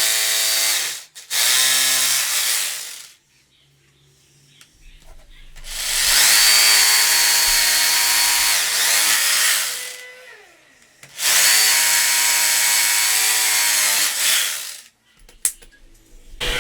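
Electric drill motor running in four bursts of a few seconds each, with short pauses between them; the pitch winds down at the end of the longest run, about ten seconds in.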